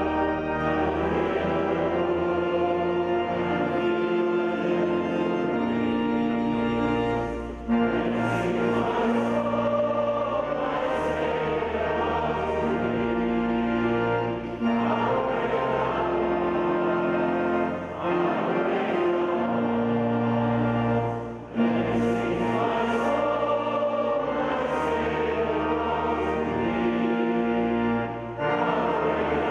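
A congregation and choir singing a hymn with organ accompaniment. The singing pauses briefly between lines every few seconds.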